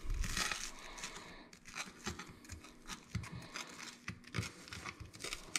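Table knife sawing back and forth through the crisp toasted crust of a mayonnaise-grilled cheese sandwich on a plate: a run of dry crunching, scratching strokes.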